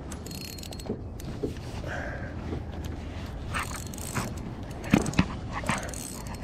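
Akuma RCX 3000 spinning reel being wound in with a small fish on the line, giving scattered mechanical clicks and rattles, the sharpest about five seconds in.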